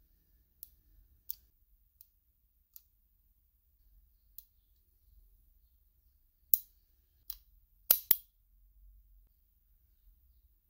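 Sharp metallic clicks from an old cast-iron spinning fishing reel as its crank and rotor parts are turned and handled. A few light clicks come in the first seconds, then louder ones past the middle, two of them close together.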